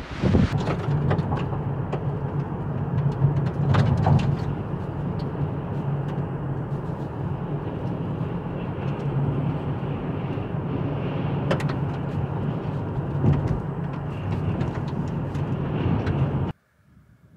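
Car driving on a paved road, heard from inside the cabin: a steady low drone of engine and tyre noise with scattered light clicks and rattles. It cuts off suddenly near the end.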